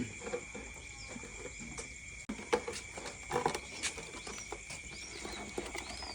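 Night insect chorus with a steady high-pitched drone, short arching chirps repeated through the second half, and scattered knocks and rustles of movement close by.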